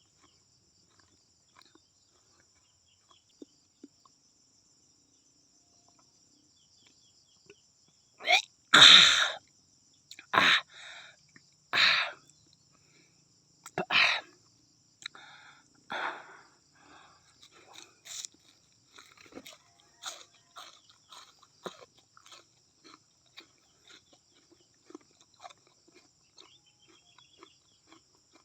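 Eating raw banana-plant trunk pith: about five loud, wet crunching bites roughly every one and a half to two seconds, starting about a third of the way in. Quieter chewing follows and fades toward the end.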